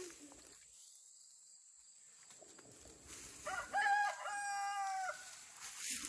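A rooster crows once, a little past halfway. It gives a couple of short notes, then a long held one, about a second and a half in all.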